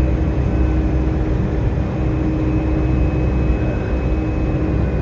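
Steady road and engine noise of a moving vehicle heard from inside the cab: a continuous low rumble with a faint steady hum.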